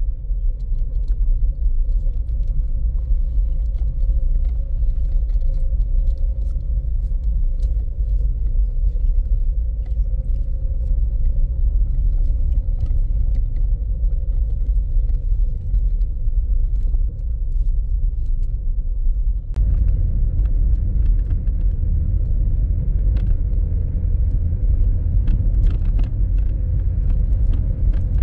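Car cabin noise while driving: a steady low rumble of engine and tyres on the road, with small scattered rattles and clicks. About two-thirds of the way through, the rumble turns fuller and louder.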